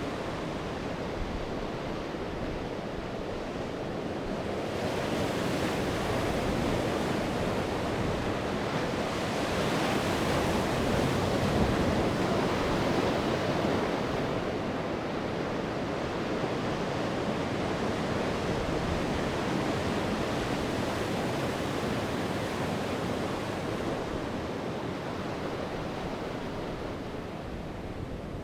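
Sea waves breaking and washing ashore as a continuous surf. It swells to its loudest about ten seconds in, then eases off toward the end.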